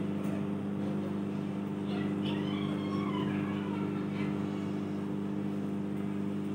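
Kenstar KJ20CBG microwave oven running a cooking cycle: a steady low electrical hum from the magnetron's transformer, together with the cooling fan.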